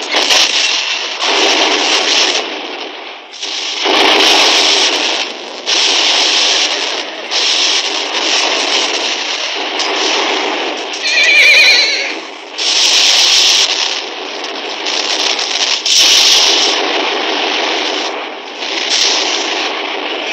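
Horses neighing over a dense, continuous battle din, with sudden blasts of cannon fire or bursting shells about 4, 11 and 16 seconds in.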